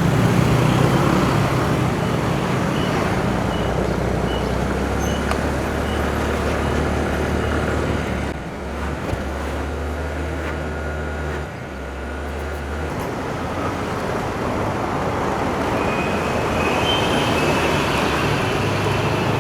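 Road traffic and vehicle engine noise on the move, a steady rumble with a low engine hum that changes pitch about two-thirds of the way through and then fades out.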